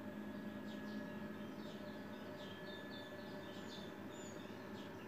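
Small birds chirping in quick, short high notes, repeating throughout over a steady low hum.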